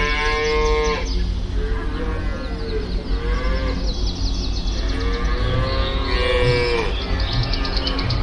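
Cows mooing: a long moo in the first second, fainter calls about two to three seconds in, and another long moo from about five to seven seconds, over a steady low background rumble.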